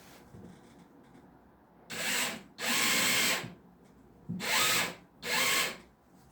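Handheld power tool running in four short bursts, each starting and stopping on the trigger, its motor pitch shifting within each burst.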